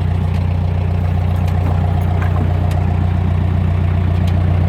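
Bobcat skid steer loader's diesel engine idling steadily at a low, even throttle.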